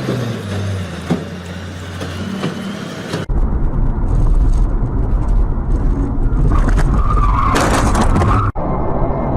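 A vehicle engine running, its pitch stepping down about half a second in. About three seconds in the sound cuts abruptly to a louder low rumble, and it cuts again near the end.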